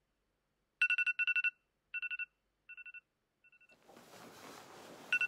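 Electronic alarm beeping in quick bursts of about four short beeps on one steady pitch, each burst fainter than the last until it dies away.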